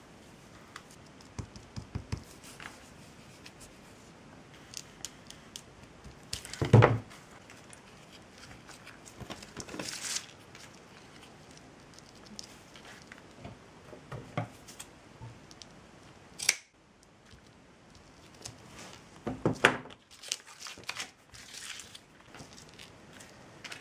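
Hands working jute twine and ribbons at a craft table: scattered soft rustles, snips and taps, with a few louder knocks, the loudest about seven seconds in.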